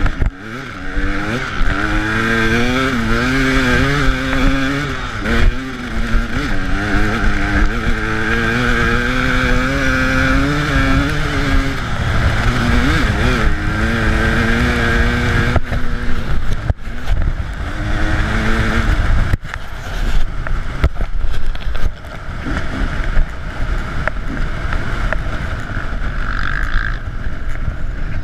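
KTM 300 EXC two-stroke dirt bike engine being ridden hard, its pitch rising and falling as the throttle is worked. Partway through, the engine note gives way to a rougher, noisier rumble with a few sharp knocks.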